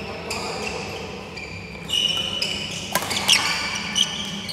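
Badminton players' court shoes squeaking on the hall floor as they move during a rally, with a few sharp smacks of rackets on the shuttlecock in the last second and a half.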